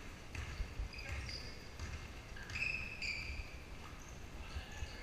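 Basketball game sounds in a large gym: sneakers squeaking in short high-pitched chirps on the hardwood floor, with a ball bouncing and a few sharp knocks.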